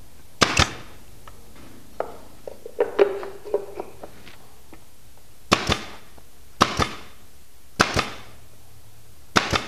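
Pneumatic nailer firing nails into plywood blocking: five sharp shots, each a crack with a quick second snap, one about half a second in and four more roughly a second apart in the second half. Lighter clicks and knocks come between about two and four seconds in.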